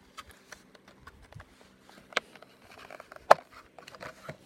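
Hands handling a Hot Wheels car's card-and-plastic blister package: scattered small clicks and rustles, with two sharper clicks, the louder one a little past the middle.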